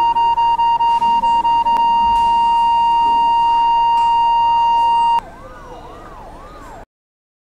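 Hospital patient monitor beeping rapidly, then going into a continuous flatline tone, the sign that the patient's heart has stopped. The tone cuts off sharply about five seconds in. Underneath, an emergency siren rises and falls about twice a second and carries on, fainter, for a moment longer.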